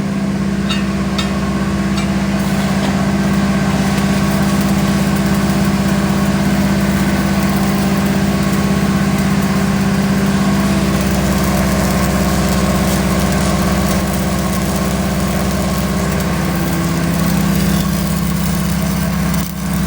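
E7018 stick-welding arc crackling steadily as a bead is run, over a steady engine drone.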